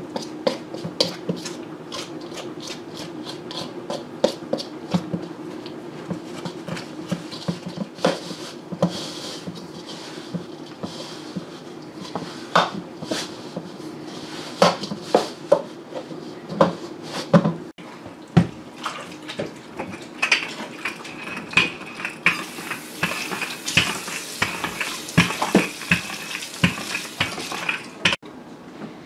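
A metal utensil clinking and scraping against a stainless steel mixing bowl as pie crust dough is mixed, in quick irregular clicks, then knocks of the bowl as the dough is worked by hand. A steady low hum runs underneath.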